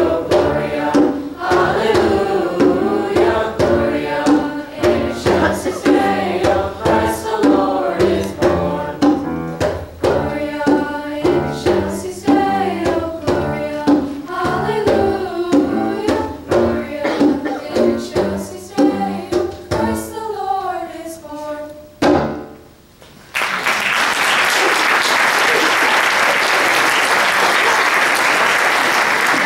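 Mixed teenage choir singing with a steady hand-drum beat, the song ending on a final stroke about 22 seconds in. After a brief gap, the audience applauds, loudly and evenly, to the end.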